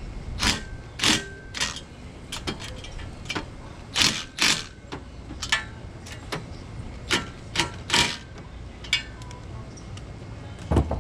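Metal tools and car parts clinking and tapping during work on the exhaust headers and clutch cable: a string of irregular sharp clicks, some with a short metallic ring, and a louder knock near the end.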